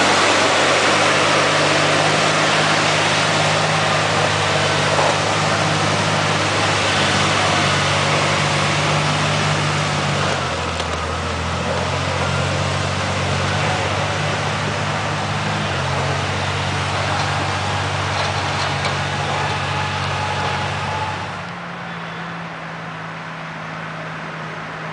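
Timberjack cable skidder's diesel engine running steadily while dragging a log. The engine note changes about ten seconds in, and the sound drops suddenly quieter near the end.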